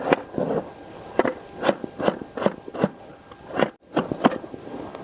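Kitchen knife chopping a tomato on a wooden cutting board: an uneven run of sharp knocks, about two to three a second.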